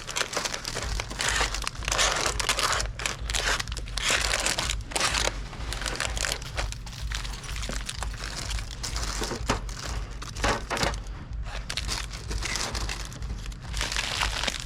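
Plastic snack packaging crinkling and rustling as it is handled and loaded, in irregular bursts, over a low steady hum.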